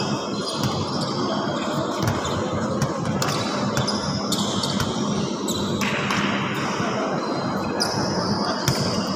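A basketball bounces now and then on the hardwood court of a large, echoing gym, with voices chattering.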